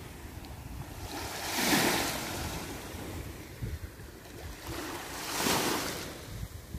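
Small waves washing up on a sandy shore, the surf swelling and fading twice, about three and a half seconds apart.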